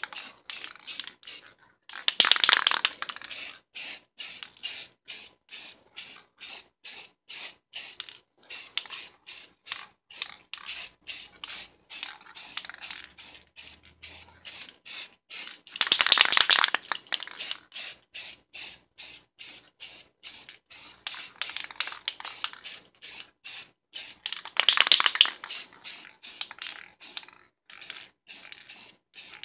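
Aerosol spray paint can hissing in rapid short bursts, about three a second, with three longer, louder sprays: one about two seconds in, one midway and one near the end.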